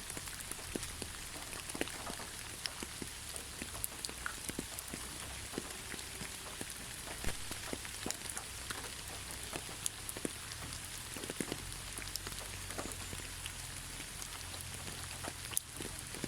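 Steady rain falling on a surface, an even hiss with many separate drops striking and ticking through it.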